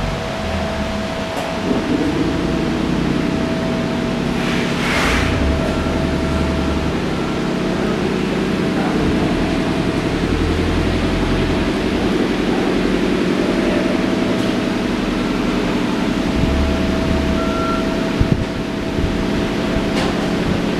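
A steady low mechanical drone with a faint steady whine above it, and a short hiss about five seconds in.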